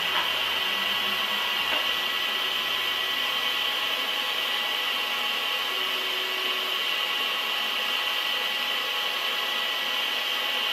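Heavy machine tool running steadily while cutting metal: a continuous high hiss with a few steady whining tones, unchanged throughout.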